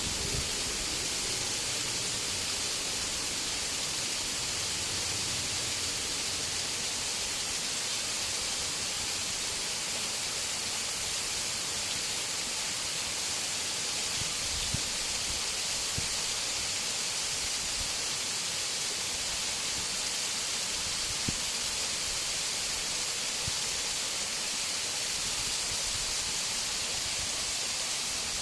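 Steady rushing hiss of a partly frozen waterfall, its water still pouring down between ice and icicles. A few faint clicks come through about halfway in.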